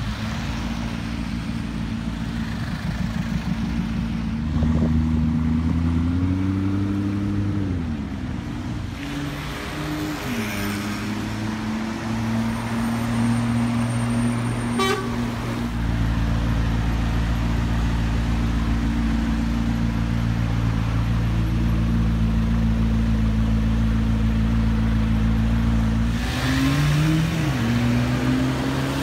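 McLaren P1's twin-turbo V8 running in slow traffic, mostly steady near idle, with the revs rising briefly a few seconds in and again near the end, amid surrounding road traffic.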